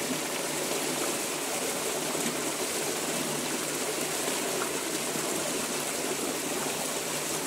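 Steady rush of running water, as when a puppy is being bathed.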